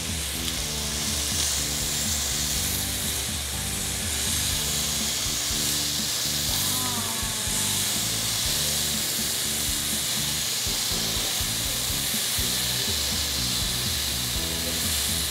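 Marinated beef satay skewers sizzling steadily on a hot, lightly oiled grill pan. Background music runs underneath.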